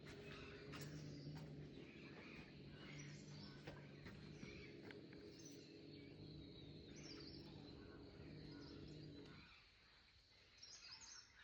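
Faint outdoor ambience: birds chirping here and there over a low steady hum, which cuts off about nine and a half seconds in.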